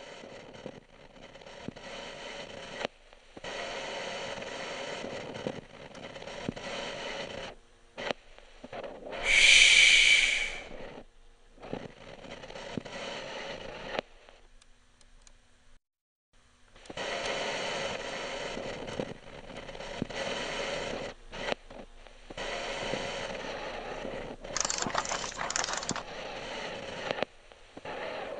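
Scratchy, static-like noise that cuts on and off abruptly, with a short loud high-pitched squeal about nine seconds in and a near-silent gap midway.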